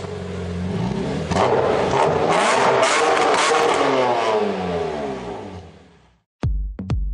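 A car engine revs, loudest around the middle, then its pitch slides down as it fades away. In the last second an electronic dance beat kicks in.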